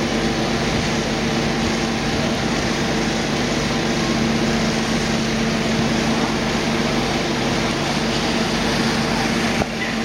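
Steady low mechanical hum under an even hiss, with one short tap near the end.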